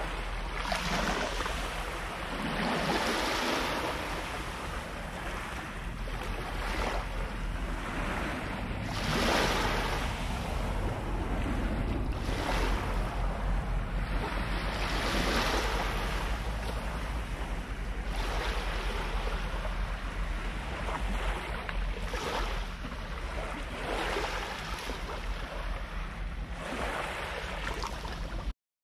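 Small waves washing onto a lakeshore, swelling and falling back every two to three seconds, with wind rumbling on the microphone.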